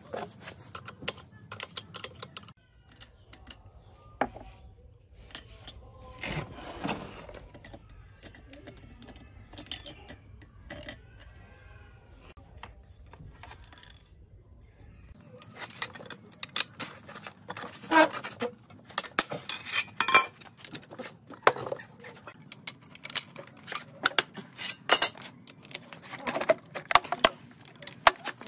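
Metal hand tools clinking and tapping against the steel valve springs and rocker arm assembly of an R190 diesel engine's cylinder head as it is fitted and tightened. The clicks and knocks are irregular, sparse at first and much thicker from about halfway through.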